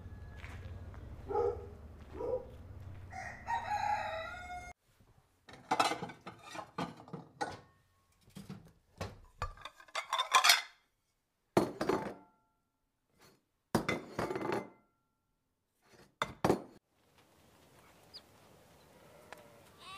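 An animal call over a low hum, then a string of short clattering knocks and scrapes of a spatula against a metal saucepan. The knocks come in separate bursts with dead silence between them, some leaving a brief metallic ring.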